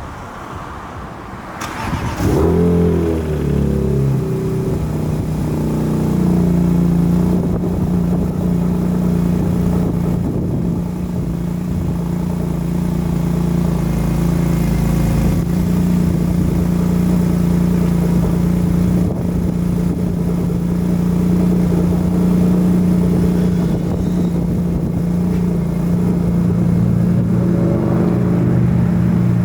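BMW E46 engine started: a brief crank about two seconds in, the engine catching and flaring up in revs, then settling within a few seconds into a steady idle as the car warms up.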